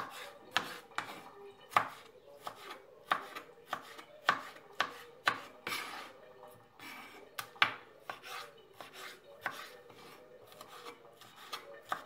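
Kitchen knife slicing and dicing a tomato on a wooden cutting board: irregular sharp taps as the blade meets the board, about one or two a second.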